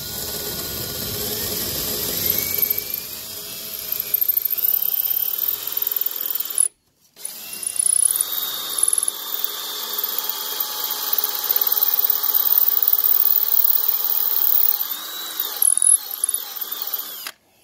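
Cordless drill boring a hole into a brick wall. The motor runs steadily, stops for a moment about seven seconds in, then runs again until it cuts off near the end.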